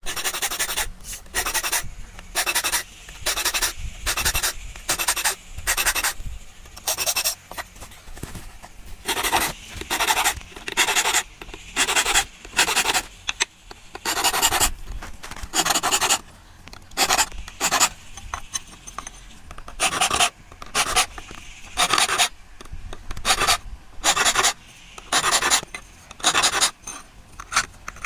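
Hand file rasping back and forth on steel, shaping a coconut-scraper (chirava) blade: a steady run of strokes, a little under two a second, with a few short pauses.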